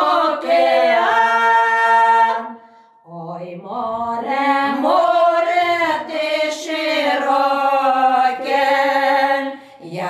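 Several women singing a Ukrainian village folk song a cappella in harmony. They hold a long chord that ends about two and a half seconds in, take a short breath, then start the next line with long drawn-out notes.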